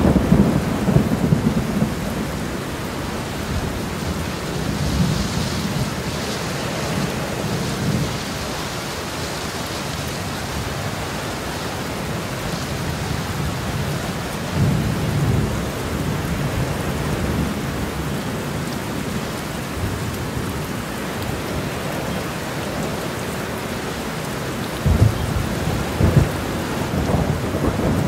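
Steady rain falling through a thunderstorm, with thunder rumbling at intervals: low rolling rumbles near the start and about halfway through, and two sharper, louder claps a few seconds before the end.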